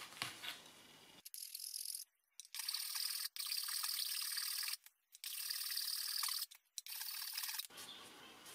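Flat metal file rasping on a plastic oil filler cap in several runs of strokes with short pauses between them. A high, dry scrape that starts about a second in and stops shortly before the end.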